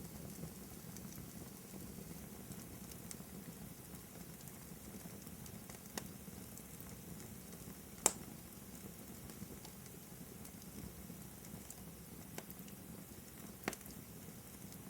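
Wood fire burning in a fireplace: a steady low crackle with a few sharp pops, the loudest about eight seconds in.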